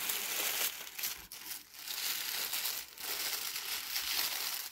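Green tissue paper crinkling and rustling as it is unfolded and pulled open by hand, in stretches with a few brief pauses.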